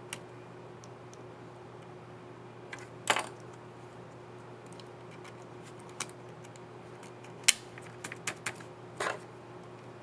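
Scattered plastic clicks and snaps of a laptop keycap and its scissor mechanism being pressed onto the keyboard of a Dell XPS 9305. They come singly and in short clusters, the sharpest about seven and a half seconds in, over a steady low hum.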